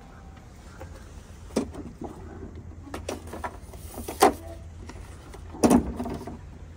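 A black metal letterbox being handled: several sharp clicks and knocks as its door is opened, an envelope is taken out from among the letters, and the door is shut again, with the loudest knock near the end. A steady low hum runs underneath.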